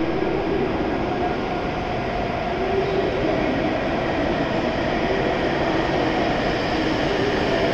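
W7 series Shinkansen train arriving at the platform, a steady rumble of wheels and running gear as the cars roll in alongside, with a faint low hum over it.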